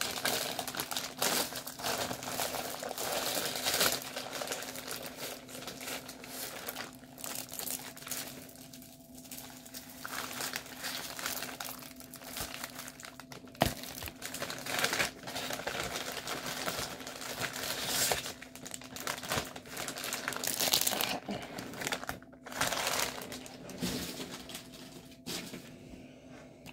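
A mail package being torn open and unpacked by hand: the packaging crinkles irregularly, with scattered louder handling noises.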